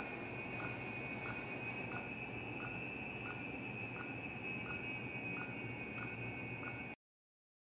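Handheld pulse oximeter beeping once per detected heartbeat, short evenly spaced beeps about one and a half a second, matching a pulse of about 91–96 bpm, over a steady high whine. It cuts off abruptly about seven seconds in.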